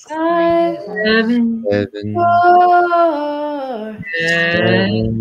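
Wordless improvised vocalizing by several voices, male and female together, heard over a video call. The tones are held and glide in pitch, with brief breaks about two and four seconds in.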